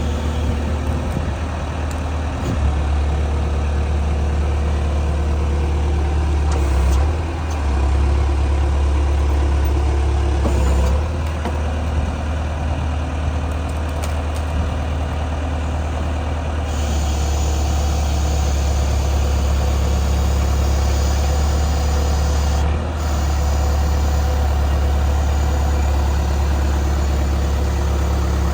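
1997 John Deere 310E backhoe loader's diesel engine running steadily, its note shifting a few times with a brief dip near the end.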